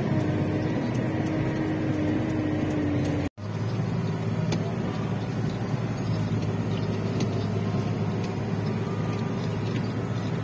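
Motor vehicle engine running steadily with road noise, cut off for an instant about three seconds in and then continuing.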